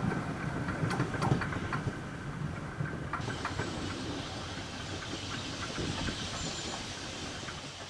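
A steam train running in the distance and fading, with a few sharp rail clicks. About three seconds in, the sound changes abruptly to a quieter, steady hiss.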